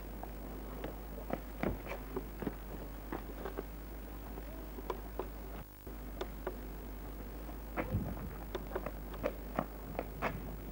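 Footsteps on a gravel road: irregular light crunches and clicks, a few a second and closer together near the end, over a steady low hum, with a brief dropout about six seconds in.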